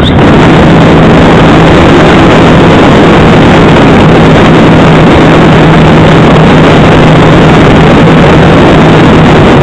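Loud rushing wind on the microphone of a camera mounted on a Calypso RC glider in flight, with a steady low hum that stops just before the end.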